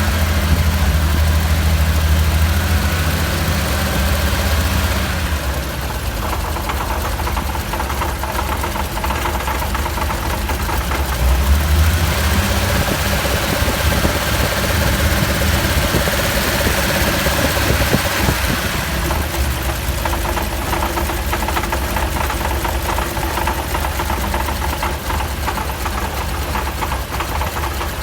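Tuned Nissan L28-based 3.0-litre inline-six with Solex carburettors running at idle, carrying an abnormal mechanical noise that the owner tags as tappet noise.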